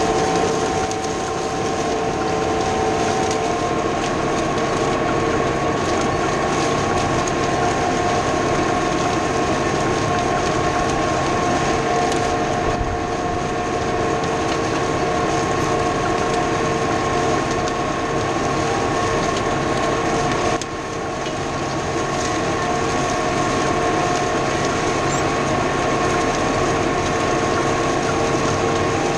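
New Holland T4.100 tractor's diesel engine running steadily under load while pulling a chisel plow through the field, a constant drone with a steady whine over a dense mechanical rattle from the tractor and hitch.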